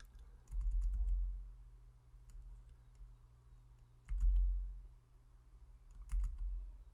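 Scattered light clicks of a computer mouse and keyboard as the software is worked. There are three dull low thumps, the loudest sounds: one about half a second in, one about four seconds in and one about six seconds in.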